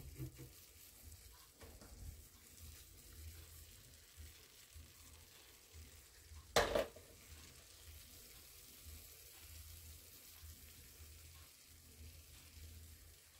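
Carrots, onions and tomato sizzling faintly in a frying pan, with one sharp knock about halfway through.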